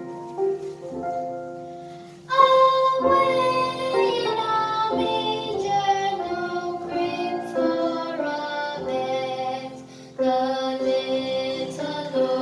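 A Christmas carol performed with singing over instrumental accompaniment. It opens with soft held notes, then the full sound comes in loudly about two seconds in, eases off, and swells again near the end.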